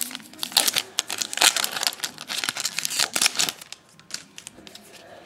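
Foil wrapper of a Bowman Platinum baseball card pack being torn open and crinkled: a dense run of crackling that stops about three and a half seconds in, followed by a few faint clicks.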